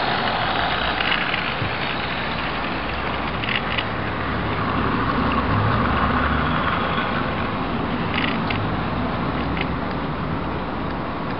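00 gauge model freight train, headed by a model Class 50 diesel, running close past on the track: a steady rumble of motor and wheels, loudest about halfway through as the wagons pass, with a few light clicks.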